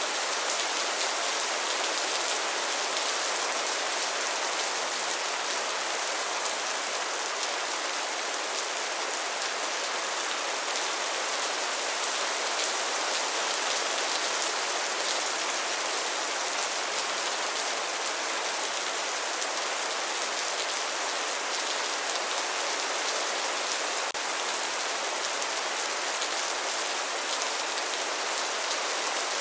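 Steady rain falling, an even hiss of many drops with no distinct individual hits.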